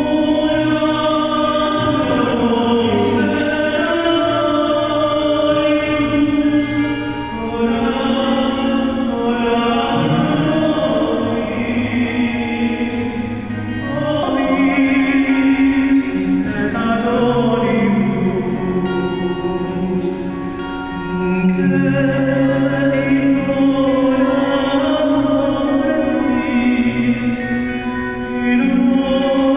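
Choral music: singing voices holding long notes over a low, sustained accompaniment.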